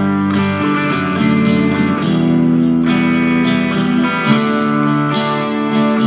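Instrumental ringtone music: a plucked melody over sustained chords, playing steadily.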